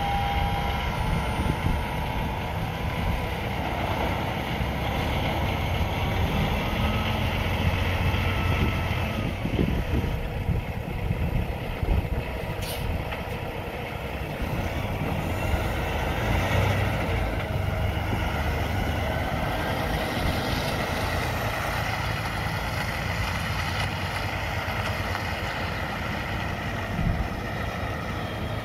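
Kenworth T680 semi tractor's diesel engine running steadily as the tractor, with no trailer, drives away.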